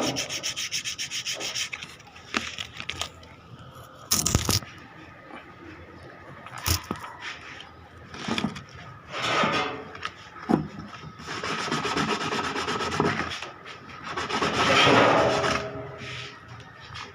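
Intermittent rubbing and scraping strokes from hand work on an angle grinder's carbon brushes, with two sharp clicks a few seconds apart.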